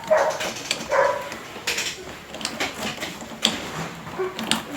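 A dog barks twice near the start, then a run of sharp clicks and knocks follows as the new door knob and its latch are worked.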